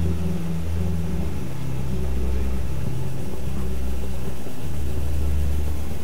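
Low droning soundtrack: deep sustained tones that shift to new notes every second or two.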